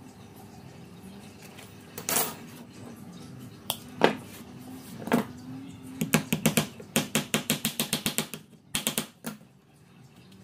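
Sharp clicks and taps from woodworking hand work: a few single knocks, then quick runs of clicks at about nine a second, and a short last cluster near the end.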